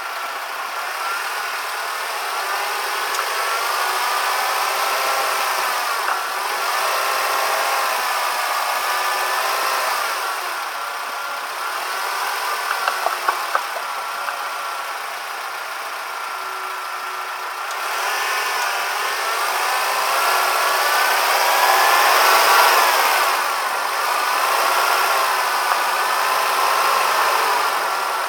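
Suzuki Jimny running, its engine pitch rising and falling, with a quick cluster of short rattling knocks about halfway through. It is recorded as an abnormal chassis vibration noise.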